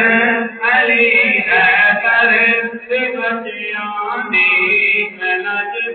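A man singing a Punjabi naat through a microphone, in long held melodic phrases with short breaks between them.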